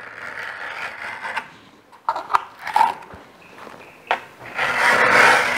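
Steel scriber scratching along thin sheet steel as it traces round a plywood template: scraping strokes, with a few short clicks in the middle and the longest, loudest scrape near the end.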